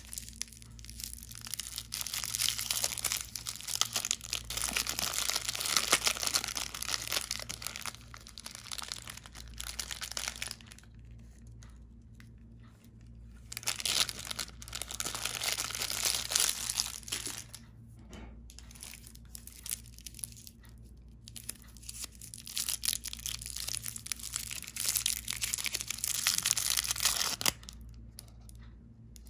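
Foil and cellophane candy wrappers crinkling and tearing as chocolates are unwrapped by hand, in long spells of rustling broken by a few short pauses.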